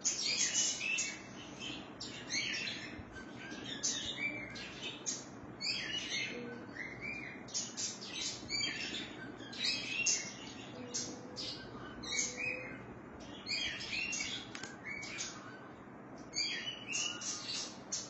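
Birds chirping: many short, high-pitched calls in quick succession.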